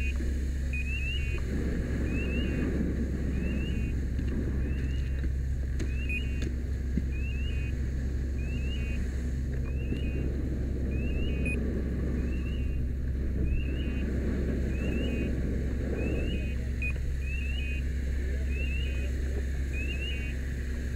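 Steady low rumble of a running engine, with a rushing noise that swells and fades over it. A short electronic chirp repeats about once a second throughout.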